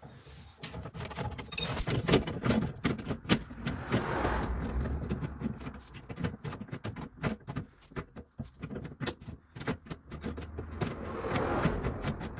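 Spare-tire winch under a Jeep Gladiator's bed being cranked counterclockwise with the jack rod, lowering the empty carrier on its cable: irregular metal clicks, knocks and rattles.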